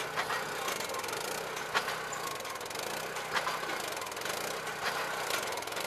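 Cable tool well drill rig running steadily on its engine, with the drill bit dropping and striking the ground in a slow rhythm, a faint knock about every second and a half.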